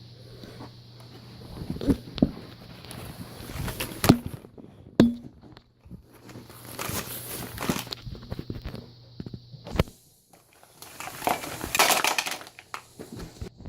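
Handling noise: scattered clicks and sharp knocks, with two stretches of crinkling, rustling noise about halfway through and near the end.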